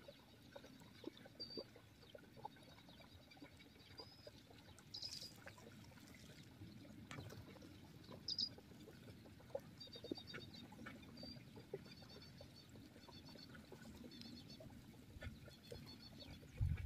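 Faint outdoor ambience with scattered short, high chirps and twittering trills of small birds, a few light ticks, and a brief low thump near the end.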